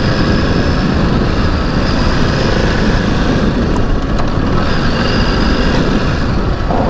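Ducati DesertX Rally's 937 cc V-twin engine running steadily at low speed in second gear, over a dense low rumble, as the bike picks its way along a rough dirt trail.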